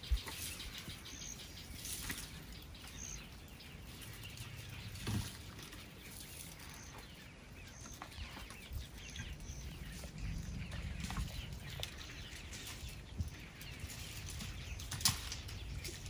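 Elephants feeding on an acacia tree: scattered sharp cracks and rustles of branches being pulled and broken, the loudest cracks about five and fifteen seconds in. Short high bird chirps come through now and then, and a low rumble rises about ten seconds in.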